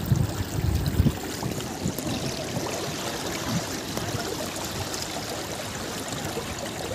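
Shallow river water running and lapping over stones, a steady wash of water noise, with a few low thumps in the first second.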